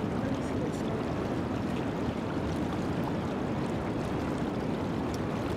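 Fast river current rushing past, a steady, unbroken rushing noise.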